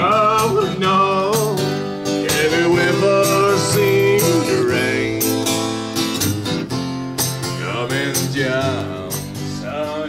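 A man singing a song live with instrumental accompaniment, his voice wavering with vibrato over a steady strummed rhythm.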